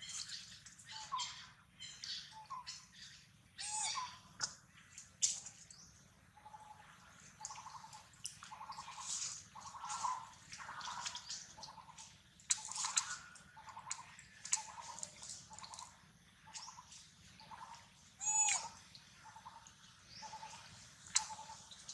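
A bird calling over and over in short, even notes, about two a second, over scattered clicks and rustles, with one louder call about eighteen seconds in.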